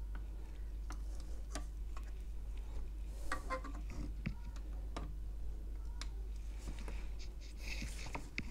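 Scattered light clicks and taps of a 150W soldering iron's tip and steel pliers against a metal battery post on a circuit board, with a couple of short scraping rustles, over a low steady hum.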